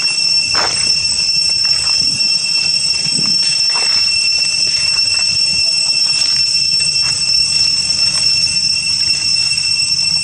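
Cicadas droning steadily in a loud, high-pitched whine, with a few brief faint rustles or squeaks over it.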